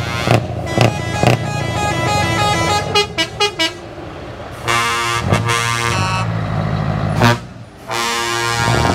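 Trucks sounding air horns while driving in a convoy, over the low hum of their diesel engines. A quick run of short horn notes changing in pitch comes first, followed by two long multi-tone blasts about five and eight seconds in.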